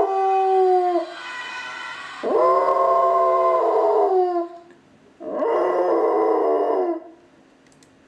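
Labrador mix dog howling, set off by an ambulance siren: three long howls with short gaps between, each sliding down in pitch as it ends.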